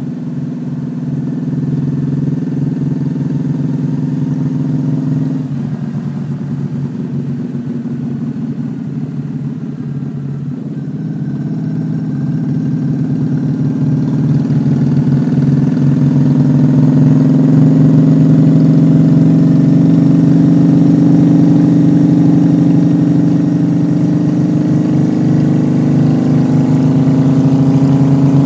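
Honda Shadow V-twin motorcycle engine running on the road. It eases off about five seconds in, then builds back up from about eleven seconds to a steady, louder cruise.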